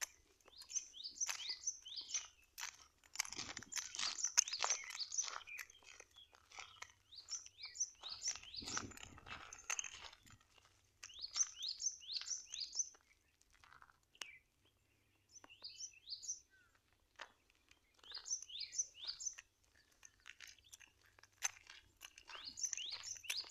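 Footsteps crunching on a dry dirt and gravel trail, with two denser stretches of crunching. Over them, birds call in quick runs of three to five short rising chirps, repeated several times.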